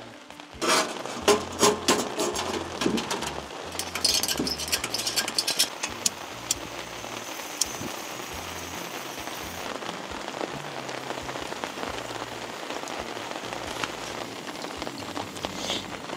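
Rain falling steadily on a tarp. During the first six seconds it is overlaid by a dense run of sharp clicks and knocks.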